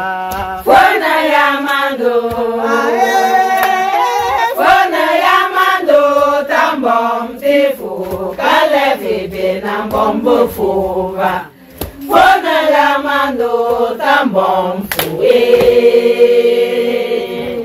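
A group of women singing together in chorus, without instruments, in sung phrases that break off briefly about two-thirds of the way through and end on a long held note.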